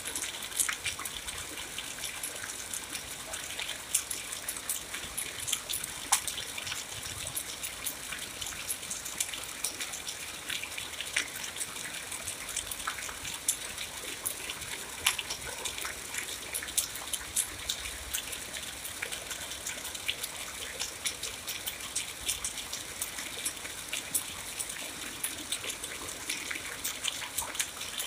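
Steady rain: a continuous hiss of falling water with many sharp drop splashes and patters scattered all through it.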